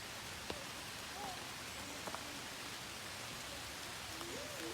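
Steady rush of flowing creek water, an even hiss with a few faint distant voices and a small click about half a second in.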